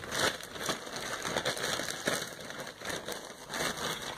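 Packaging being rustled and crinkled by hand: a dense crackle of many small clicks.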